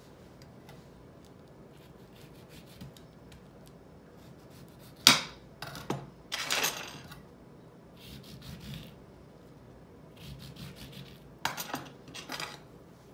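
A knife cutting into a lemon on a plastic cutting board: a sharp knock about five seconds in, then short scraping strokes, with another cluster near the end.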